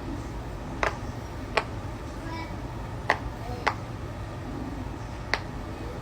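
Bubbles of a silicone push-pop poppet being pressed during a pop-it game: five separate sharp pops at uneven intervals, over a low steady hum.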